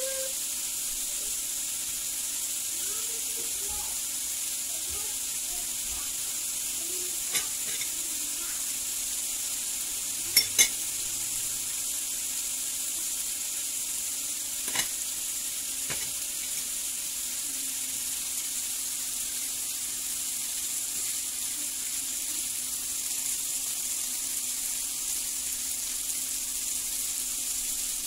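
Lamb chops and diced potatoes frying together in a pan over medium heat, with a steady sizzle. A few sharp clicks, the loudest a quick pair about ten seconds in, come from a knife against the pan as butter is sliced onto the chops.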